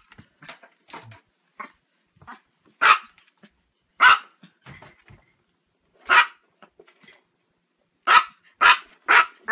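A Chihuahua barking in sharp, high yaps, single barks a second or two apart, then three in quick succession near the end.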